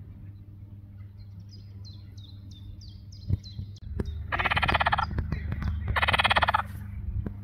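A frog croaking twice, each call a rattling run of rapid pulses lasting under a second, about four and six seconds in; it puffs out its cheek vocal sacs as it calls. Before that, a quick series of short, high, falling chirps from a small bird.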